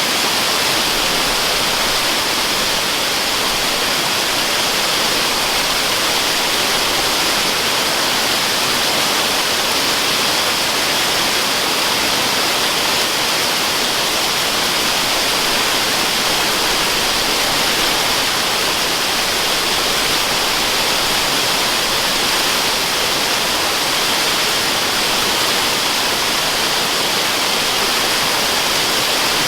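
Waterfall rushing as a steady white-noise hiss, even and unchanging, brightest in the upper-middle range.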